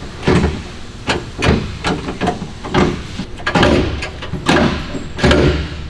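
IRP short shifter being rowed through the gears of a ZF manual gearbox with no engine running: a string of sharp mechanical clunks, a little over one a second, as the lever snaps into each gear.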